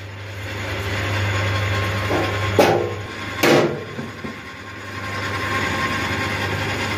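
Metal lathe running: a steady motor and drive hum as the chuck turns a steel workpiece, with two short knocks about two and a half and three and a half seconds in.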